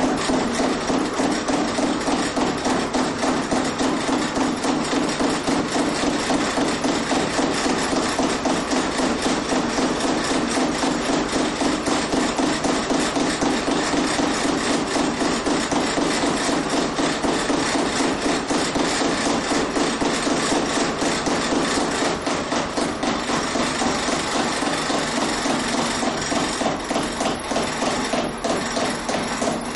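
Home-built gravity flywheel-and-lever machine running, its spinning weighted arm and wooden frame giving a fast, even knocking rattle. Near the end the knocks spread apart as the machine slows down.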